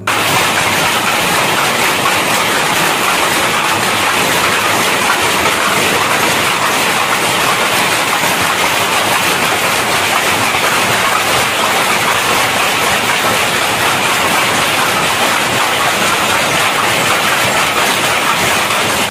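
Many power looms running at once: a loud, dense, steady mechanical clatter of the looms weaving.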